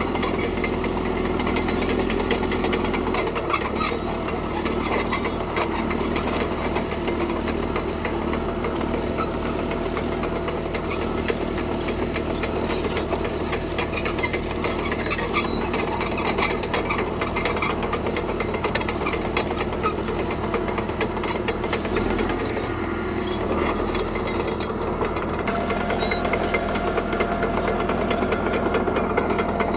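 Caterpillar D3K crawler dozer's diesel engine running steadily as it works, its note shifting a few seconds in and again past twenty seconds, with light rattling and clicking over it.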